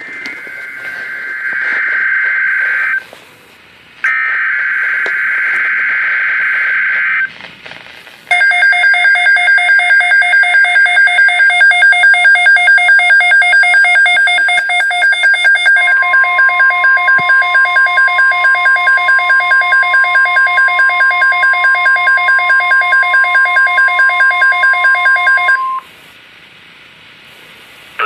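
NOAA Weather Radio Emergency Alert System alert for a severe thunderstorm watch, played through Midland weather radios. It opens with two long buzzy SAME digital header bursts. Then come the radios' rapidly pulsing alarm beeps, joined about halfway by the steady 1050 Hz weather alert tone, and everything cuts off shortly before the end.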